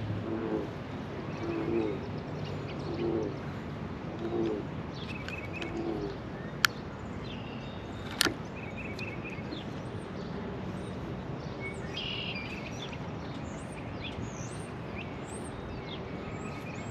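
Outdoor ambience with birds chirping. A run of short, low calls repeats about once a second over the first five seconds, and two sharp clicks come about seven and eight seconds in.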